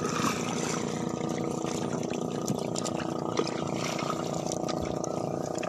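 A small fishing boat's engine running steadily, with water splashing and trickling around the hull.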